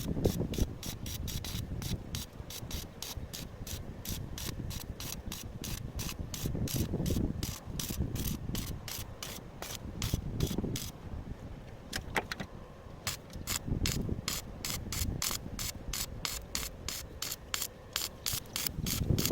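Steady rapid mechanical clicking, about four sharp clicks a second, with a short break about twelve seconds in, over low rumbles that swell every few seconds.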